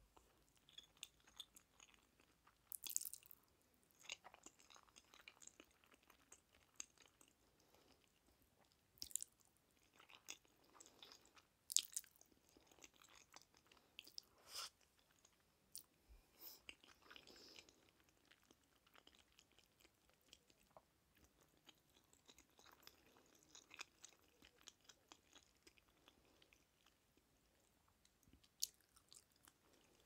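Quiet, close-miked chewing of a mouthful of jjajangmyeon noodles: soft, wet mouth clicks and smacks, with a few sharper clicks scattered through.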